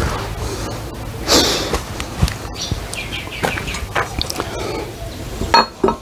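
Steel transmission gears and shaft of a Case 580SK backhoe clinking and knocking as they are handled by hand: a scatter of light metal clicks, a scraping rustle about a second in, and sharper knocks near the end.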